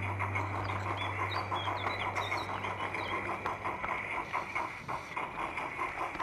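Garden-railway model locomotive and its train running along the track, heard from the wagon behind: a quick, even, rhythmic beat over a faint steady whine. A few bird chirps sound in the first few seconds.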